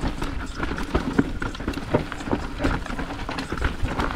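Mountain bike rolling fast over a rough dirt trail: a dense, irregular clatter of knocks and rattles from tyres hitting rocks and roots and the bike's chain and frame, over a steady low rumble.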